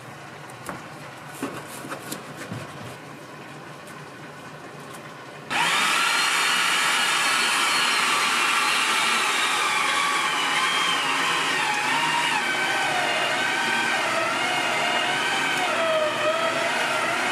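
An electric kitchen machine's motor switches on suddenly about five seconds in and runs loudly to the end, with a whine whose pitch wavers as it is loaded. Light clicks and knocks of handling come before it.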